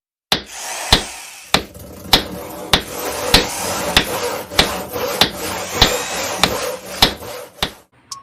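Steady hammering: about thirteen evenly spaced sharp strikes, a little under two a second, that stop shortly before the end.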